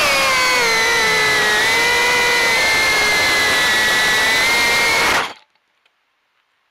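Small multirotor drone's electric motors and propellers whining, pitch wavering slightly, then cutting off abruptly about five seconds in as the drone sets down and its motors stop. A few faint ticks follow.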